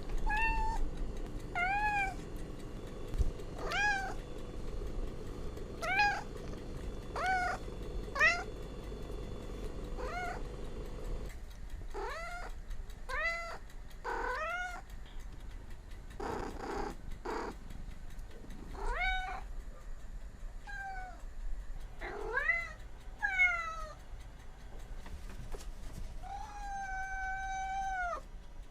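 Cats meowing over and over, short calls that rise and fall in pitch, one every second or two, ending in one long drawn-out meow.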